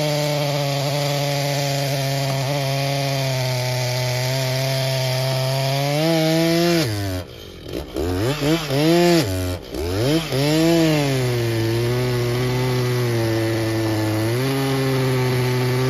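Chainsaw cutting into wood at a steady engine pitch; about six seconds in the engine speed rises, then drops and surges several times before settling back to a steady pitch.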